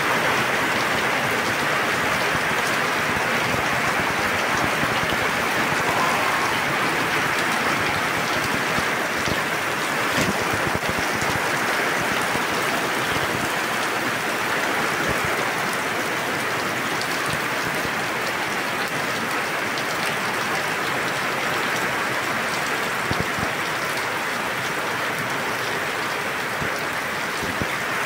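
Heavy rain falling steadily, with water pouring and splashing close to the microphone.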